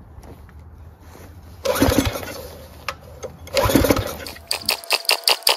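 Briggs & Stratton 6 HP Intek overhead-valve engine on a pressure washer being pull-started twice with the recoil starter, about two seconds apart, with starting spray in the carburetor and the choke closed; it cranks over but does not catch. Near the end comes a quick run of sharp clicks, about five a second.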